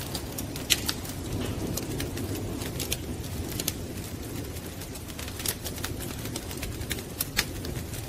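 Wood fire crackling: irregular sharp pops and snaps over a steady low rumble of burning.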